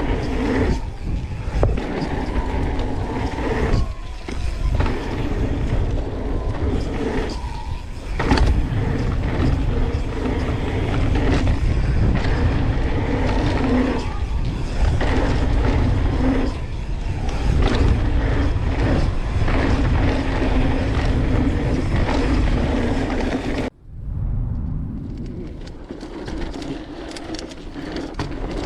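FPV racing drone's electric motors and propellers running with a steady multi-tone hum over low wind rumble, broken briefly a few times. About 24 s in it cuts off sharply and a quieter, rougher rumble takes over.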